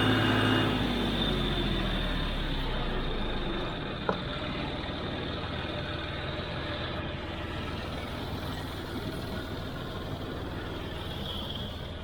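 John Deere 5055D diesel tractor engine throttling down: its steady note drops in pitch and grows quieter over the first few seconds, with a single sharp click about four seconds in, then a lower, steady running noise.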